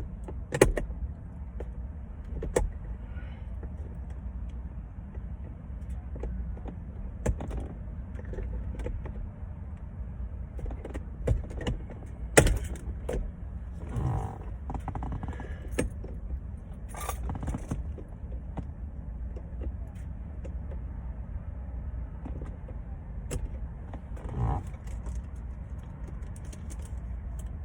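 Scattered clicks, taps and knocks of hands working on a car's plastic interior trim, prying out and fitting small light housings, over a steady low rumble. The sharpest knocks come about half a second in and about twelve seconds in.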